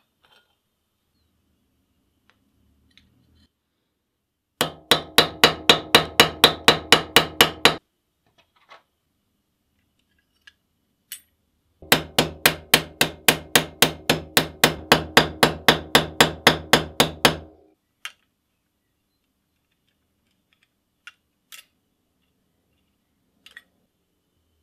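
A small hammer tapping metal in quick, even blows, about five or six a second, with a ringing note on each blow. There are two runs: one of about three seconds a few seconds in, and a longer one of about five seconds starting near the middle. A few faint clicks come between the runs.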